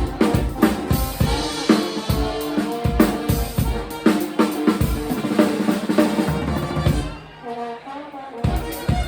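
A live band playing: a drum kit keeps a busy beat of snare and bass drum under sustained pitched instrument lines. About seven seconds in the drums drop out and the music goes on more softly.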